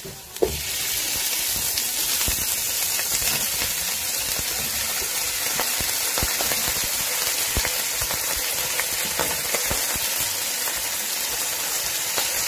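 Raw chicken pieces going into hot oil with browned onion and garlic-ginger paste: a sharp knock about half a second in sets off a loud, steady sizzle. A few light knocks of a spatula on the pan come through the sizzle.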